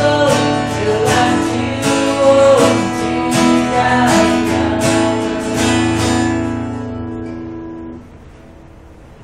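Acoustic guitar strumming the closing chords of a song, the last chord ringing and then cut off sharply about eight seconds in.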